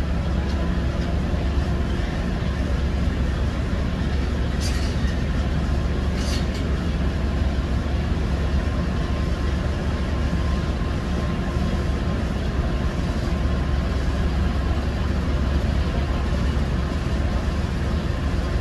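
Ford E150 van's engine idling steadily, a low hum picked up by the dash cam inside the cab. Two brief hisses come about a second and a half apart, a few seconds in.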